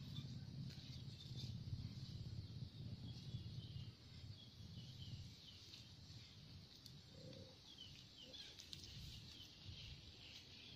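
Quiet outdoor ambience: faint short bird chirps over a low rumble, the rumble louder for the first few seconds.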